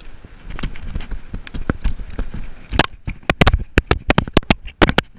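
Close handling noise of a just-caught fluke and the jig being worked out of its mouth: rough rustling, then a fast, irregular run of sharp knocks and slaps about halfway in, thickest near the end.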